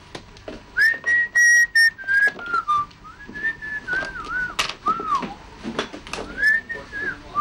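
A person whistling a wandering tune that rises and falls in pitch, starting about a second in, with scattered sharp clicks and knocks around it.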